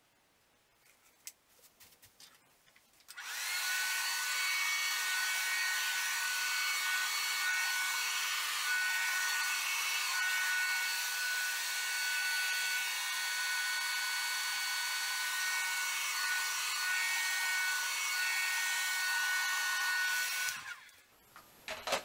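Hand-held hair dryer blowing wet acrylic paint across a pour: a steady rush of air with a steady whine over it. It switches on about three seconds in and cuts off shortly before the end, after a few light clicks at the start.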